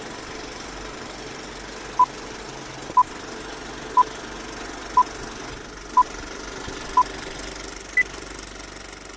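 Film-leader countdown beeps: a short beep once a second, six times, then one higher beep. Underneath runs a steady mechanical whir and rattle of a film projector.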